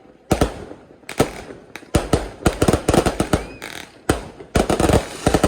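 Fireworks exploding: a series of sharp bangs, spaced out at first, then coming in quick clusters in the middle and again near the end, each trailing a short echo.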